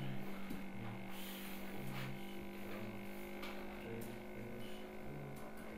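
Steady low hum, with a lower wavering tone that pulses on and off about once or twice a second and a few faint clicks.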